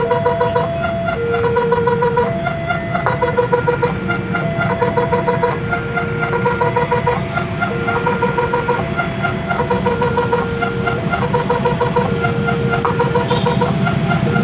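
Electronic level-crossing warning siren sounding a faulty, irregular sequence of beeping tones, some held for about a second and some rapidly pulsed. A steady low engine and traffic rumble runs underneath.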